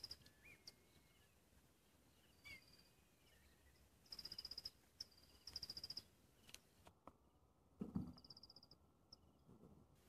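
Faint bush ambience: short high chirping trills that come every second or two, and a few soft whistled bird calls in the first few seconds.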